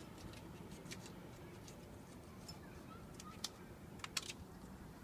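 Faint, scattered crinkling and sharp little clicks of foil being peeled off the neck of a sparkling wine bottle, with a couple of louder crackles near the end.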